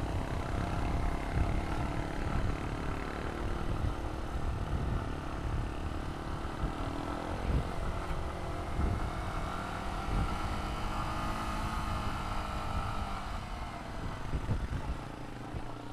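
Motorcycle engine running steadily at low speed while riding over rough, broken road, with a low rumbling underneath.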